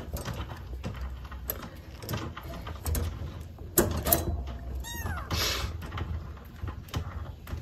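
Light clicks and rustles of handling, with one short kitten mew that falls in pitch about five seconds in.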